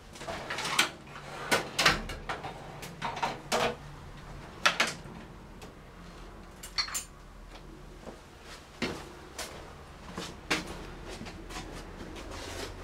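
Hand tools being picked up and handled: irregular clunks and metallic clatters, several close together in the first few seconds and a few more spread out later.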